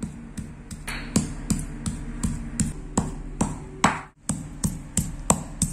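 Stone pestle pounding in a heavy stone mortar (khalbatta), crushing garlic cloves with cumin, salt and red chilli powder into a coarse paste. The pestle strikes in a steady rhythm of about three dull knocks a second, with a brief break about four seconds in.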